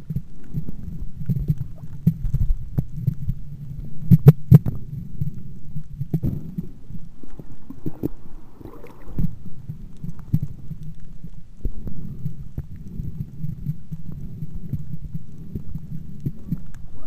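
Muffled underwater sound picked up by a submerged camera: a low rumble of water with irregular knocks and clicks, two sharp clicks about four seconds in being the loudest.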